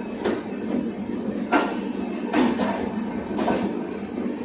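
Passenger train rolling slowly out of a station, heard from a coach doorway: a steady rush of running with sharp clacks of the wheels over rail joints, some coming in close pairs, about once a second.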